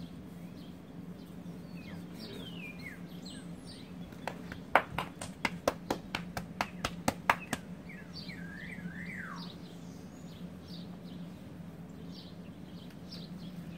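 Small birds chirping with short falling calls, several times over. In the middle comes a quick, uneven run of about a dozen sharp clicks or taps, the loudest sounds here. A steady low hum runs underneath.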